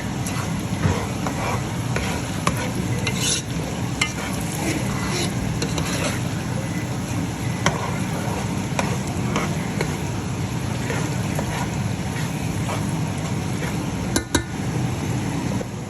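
Food sizzling as it fries in a pan while a utensil stirs and scrapes it, with scattered clicks throughout and a couple of louder knocks near the end.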